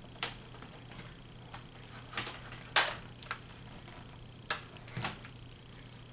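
Scattered sharp plastic clicks and taps, about six, the loudest a little before the middle, as a replacement laptop LCD panel and its bezel are handled and pressed into place.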